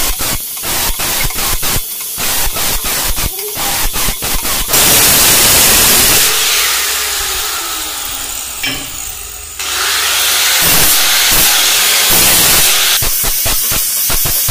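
Electric angle grinder with a cut-off disc cutting aluminium square tube: a loud hiss with a fast rattle in the first few seconds. About six seconds in the grinder winds down with falling pitch. Cutting starts again near ten seconds.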